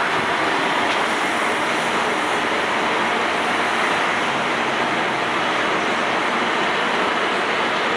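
Steady, even rushing background noise of an airport. It stays the same throughout and does not fade as the train moves off.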